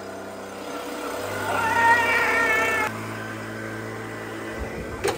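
Handheld leaf blower running with a steady hum. About a second and a half in, a wavering high squeal joins it and is the loudest part; both cut off abruptly about three seconds in, leaving a quieter steady hum.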